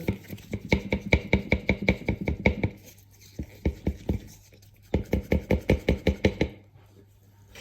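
A four-week-old Arnott AS 3380 air suspension strut for a Tesla Model S rattling as it is shaken, in three bouts of quick clacks about six a second. The rattle is the defect being shown: the part clatters after only four weeks, while its replacement stays silent.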